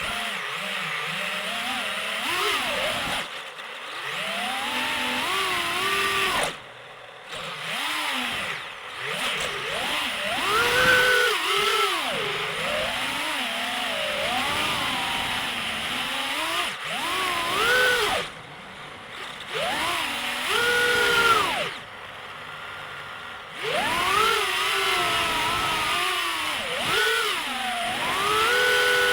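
FPV quadcopter's electric motors and propellers whining, the pitch rising and falling constantly with the throttle, with a few short dips where the throttle is cut.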